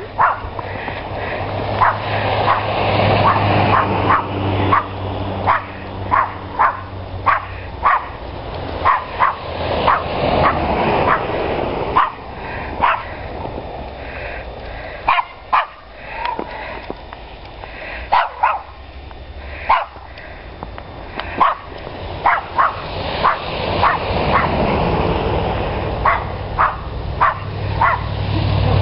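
Dogs barking with short, sharp yips, scattered irregularly and often several in quick succession, over a steady background hiss.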